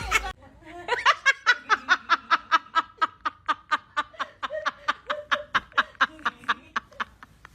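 A voice giving a long, even run of short laugh-like pulses, about five a second.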